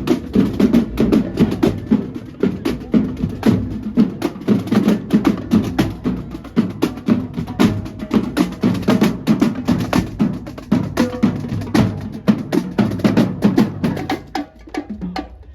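Drum-heavy percussion music: rapid, rhythmic drum strokes, several a second, dropping off somewhat near the end.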